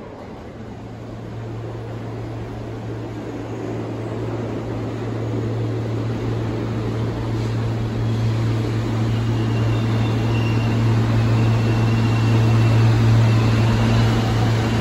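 R160 subway train standing at an underground platform, with a steady low hum from its onboard equipment that grows slowly louder.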